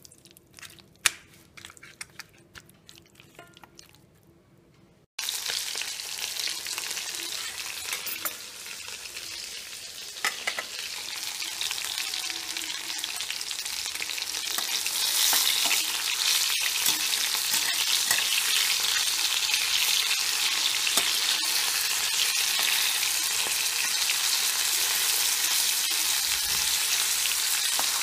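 Spice-marinated chicken pieces frying in hot oil in a pan: a steady sizzle that starts abruptly about five seconds in and grows louder from around fifteen seconds. Before it, only a few soft clicks.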